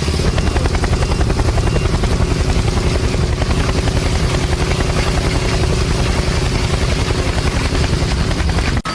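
A loud machine running steadily with a rapid, even throb, cutting off suddenly near the end.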